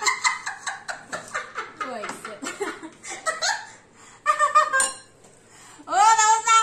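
Two women laughing hard in quick, breathy bursts, followed by scattered laughs and short vocal outbursts, with a loud drawn-out voiced sound near the end.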